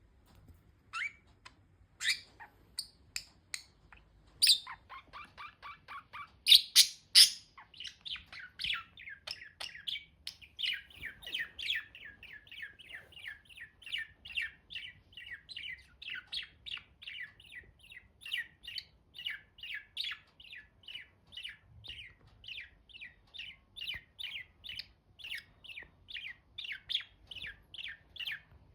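Budgies chirping. At first there are a few scattered chirps, then from about four seconds in comes a fast, steady run of short repeated chirps, about three a second, with a few louder calls around seven seconds in.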